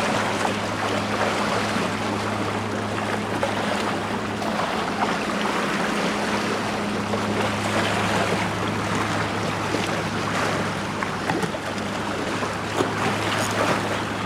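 Sea waves washing with wind, an even rushing noise throughout, over a steady low hum.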